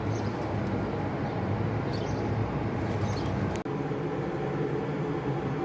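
A steady low mechanical hum with a few faint high chirps from small birds in a tree. The sound breaks off for an instant about three and a half seconds in, and the hum goes on after it as a steadier drone.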